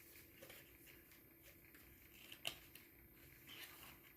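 Near silence with a few faint clicks and rustles from handling small items, one sharper click about two and a half seconds in.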